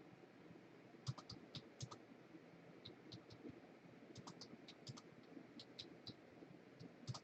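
Faint, irregular clicking of typing on a computer keyboard, in short scattered runs of keystrokes.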